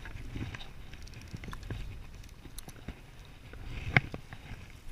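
Wind rumbling on the microphone, with scattered light clicks and knocks from handling a spinning rod and reel, and one sharp knock about four seconds in.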